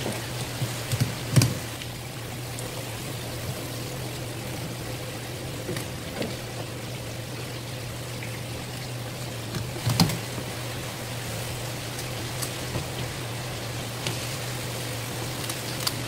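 Scissors snipping through a rock bream's spiny fin, a few sharp clicks about a second in, then light knife work on the fish with a sharp knock about ten seconds in, over a steady hum and watery hiss.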